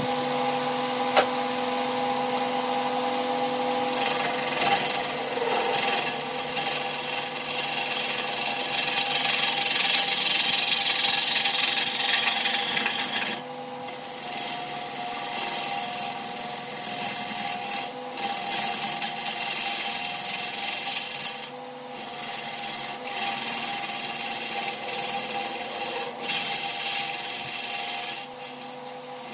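Wood lathe running with a steady hum. About four seconds in, a turning tool starts cutting into the face of the spinning log with a rough scraping hiss, broken off briefly several times as the tool lifts away.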